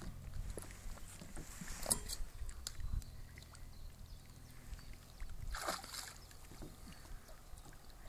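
Water sloshing and lapping around a kayak on open water over a low steady rumble, with two brief splashes, about two seconds in and near six seconds in, and a few small knocks.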